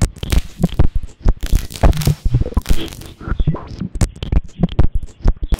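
A rapid, irregular jumble of close scraping, crackling and knocking noises.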